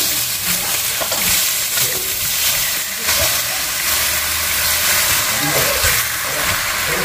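Raw chicken pieces sizzling in a hot non-stick wok, a steady frying hiss as more pieces are dropped in.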